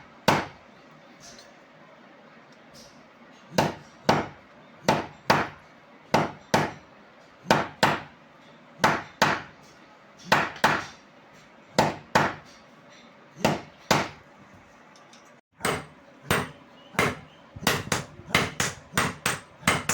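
Blacksmith's hammer striking hot steel on an anvil while forging a hatchet head: sharp single blows, often in pairs. There is a pause of about three seconds near the start, and the blows come quicker and closer together near the end.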